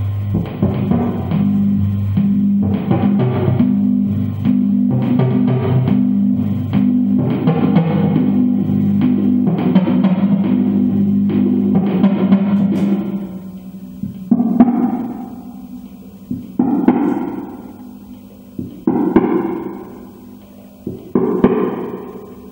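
Verbos Electronics modular synthesizer played through a Laney LC-30 valve combo guitar amp: a sustained low pitched drone with pulsing notes over it, which drops away about 13 seconds in, leaving single struck notes that ring out and fade, one every two seconds or so.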